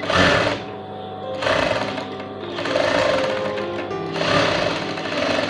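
Juki sewing machine stitching through fabric in several short runs that start and stop every second or so.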